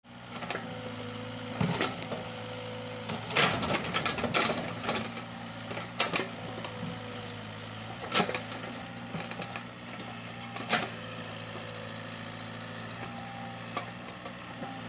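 Sumitomo mini excavator's diesel engine running steadily while it digs out a eucalyptus stump, with sharp knocks and cracks every few seconds from the bucket and the wood. The loudest knocks come about three and a half seconds in and again around eight and eleven seconds.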